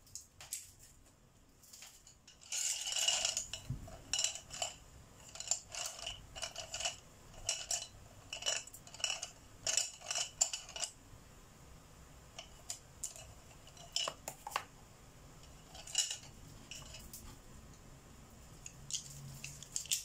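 Wooden colored pencils clattering and clinking against each other and a glazed ceramic pot as a hand rummages through them: a quick run of clicks for several seconds, thinning to occasional clicks after about eleven seconds.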